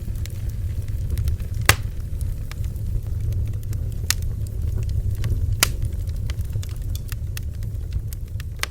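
Bonfire crackling, with many small ticks and a few sharp pops (about two seconds in, just after four seconds and around five and a half seconds) over a steady low rumble.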